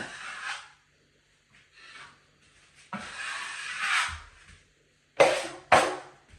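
Drywall knife scraping joint compound over a drywall repair. There is a short stroke at the start and a longer stroke about three seconds in, then two short, sharp scrapes about half a second apart near the end.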